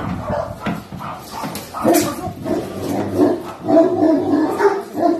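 A dog barking and whining, a run of short calls one after another.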